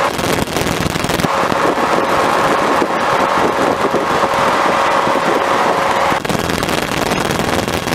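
Robin DR400 light aircraft's piston engine and propeller running at steady cruise power, heard inside the cockpit as a loud, even drone with a constant tone and many small crackles mixed in.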